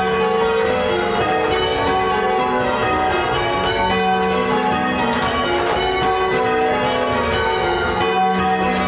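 Ring of eight Gillett & Johnston church bells being rung in changes, one bell striking after another in a steady, unbroken stream of overlapping ringing tones.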